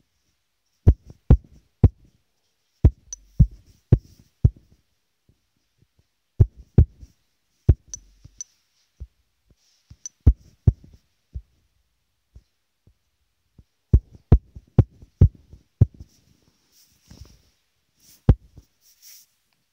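Irregular taps and knocks on a phone's touchscreen, picked up through the phone's own body and microphone, some coming in quick runs of two or three with pauses between. A brief soft rustle comes near the end.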